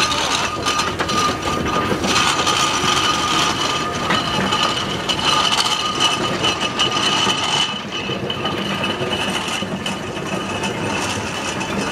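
Steam traction engines passing slowly, a continuous mechanical clatter and rumble of their engines, gearing and wheels on the road, easing slightly about eight seconds in as one engine moves off and the next approaches.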